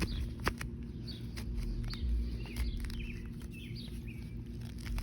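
Small birds chirping in quick short calls through the middle. A sharp click or two near the start comes from the homemade steel trowel being tried in the ground.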